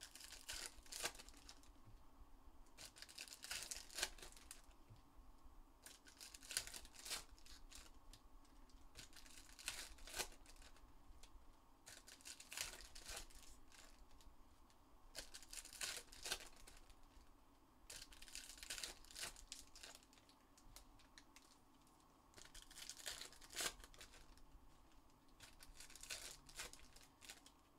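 Faint tearing and crinkling of trading-card pack wrappers from a Panini Select basketball hobby box being ripped open, in short bursts every two to three seconds.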